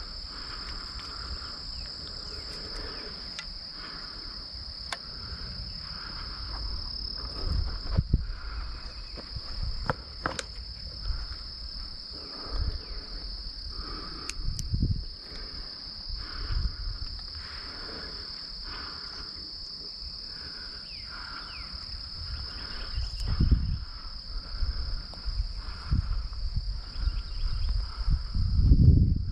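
Insects trilling steadily in a high, unbroken buzz, with footsteps on dirt and grass thudding in irregularly and getting louder near the end.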